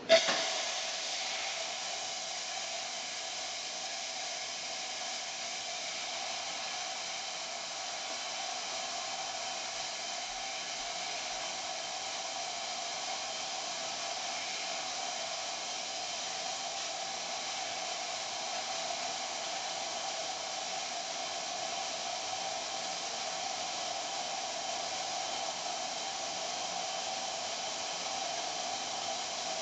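La Spaziale S1 Mini Vivaldi II espresso machine's steam wand blowing steam into a mug: a sharp burst as the valve opens, then a steady hiss.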